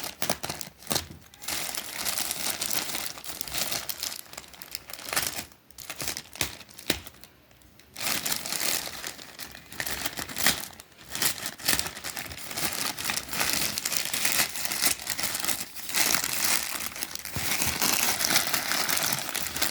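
Polythene packaging crinkling and rustling as it is handled and pulled open, with a brief quieter pause about seven seconds in.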